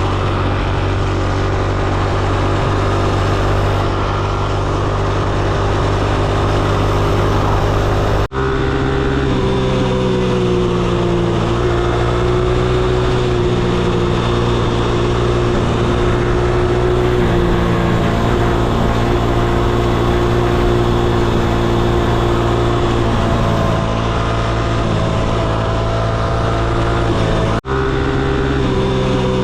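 Small single-cylinder minibike engine running at a fairly steady speed under way, its pitch wavering slightly. The sound breaks off abruptly for an instant twice, about eight seconds in and near the end.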